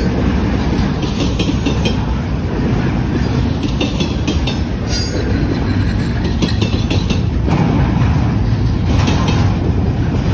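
Intermodal freight train's container well cars rolling past: a steady heavy rumble of steel wheels on rail, with clusters of clickety-clack every two to three seconds as wheelsets cross rail joints. A brief faint wheel squeal comes about five seconds in.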